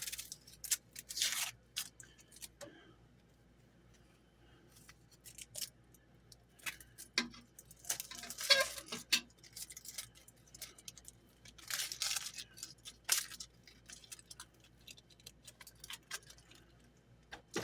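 An onion being trimmed and peeled: scattered light knife clicks and a few brief rustles and tears of its dry papery skin.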